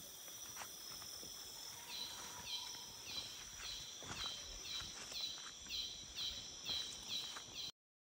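Tropical forest sounds: a steady high-pitched insect drone, joined about two seconds in by a repeated falling chirp about twice a second, with footsteps crunching in leaf litter. The sound cuts off suddenly just before the end.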